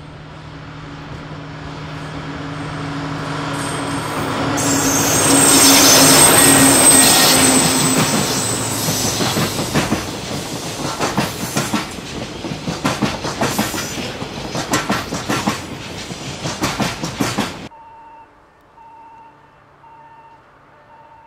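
DF200 diesel-electric locomotive approaching and passing with a container freight train: its engine hum builds to a peak about six seconds in, with a high wheel squeal setting in, then the container wagons' wheels clack rhythmically over the rail joints. The sound cuts off suddenly near the end, leaving faint repeated electronic beeps.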